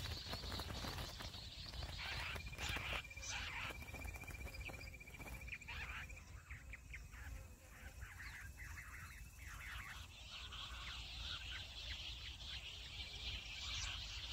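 Jungle bush quail calling: a quick run of short, repeated chirps from about two seconds in until about ten seconds, with a thin, steady high tone under it for a few seconds.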